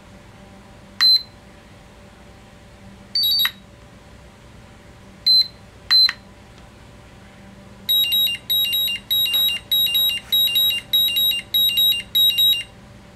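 iMAX B6 LiPo balance charger beeping as its buttons are pressed: single short beeps about one, three, five and six seconds in. Then comes a run of about ten quick two-tone beeps, roughly two a second, as the 5S balance charge is confirmed and starts.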